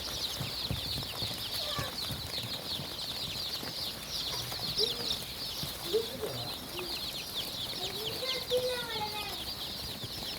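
A flock of chickens calling: a constant chatter of many short, high-pitched peeps, with a few lower clucking calls about halfway through and again near the end.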